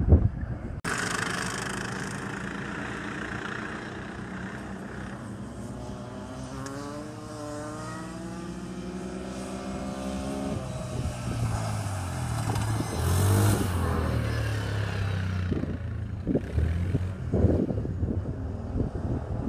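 Rotax Max 125cc single-cylinder two-stroke kart engines racing around the circuit, their note rising and falling as the karts accelerate and brake through the corners. Through the middle one engine's pitch climbs, then drops abruptly to a lower note about halfway through.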